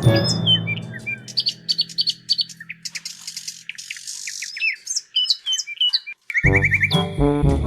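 Birds chirping in many short, quick calls while a held music chord fades out underneath; a brief gap, then a bouncy music track with a rattling beat starts near the end.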